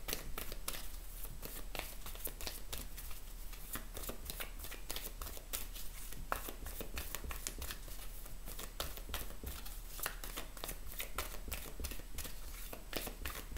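A deck of oracle cards shuffled by hand, the cards passing between the hands in a steady stream of soft, irregular flicks and slaps, several a second.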